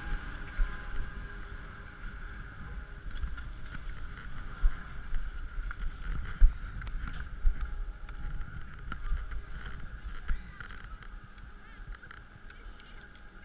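Skis gliding over groomed, packed snow, heard as a low rumble with frequent knocks and bumps, muffled through a GoPro's housing. The sound eases off towards the end as the glide slows.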